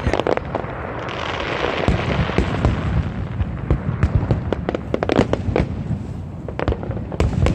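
Aerial fireworks going off in a dense barrage: many sharp crackling pops and bangs, one after another, over a continuous low rumble.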